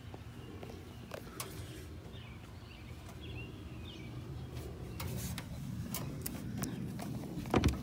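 Phone handling noise and scattered light knocks as the camera moves around a wooden treehouse, with a few faint bird chirps in the middle and one sharp knock near the end.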